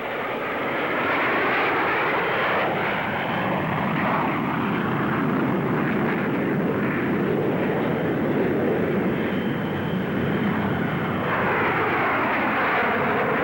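Jet Provost trainers taking off in formation, their jet engines making a steady, loud rushing noise. Sweeping tones glide down and up as the aircraft pass, most clearly near the end.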